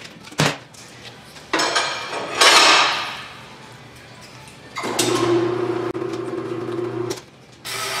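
John Bean EHP System II tire changer at work: a click, then a loud hiss of compressed air for about a second and a half, and from about five seconds in the turntable's electric motor hums steadily for about two seconds before stopping.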